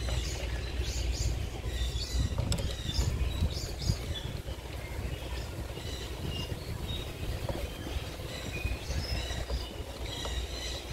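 Outdoor background: a steady low rumble with short, high bird chirps scattered through it.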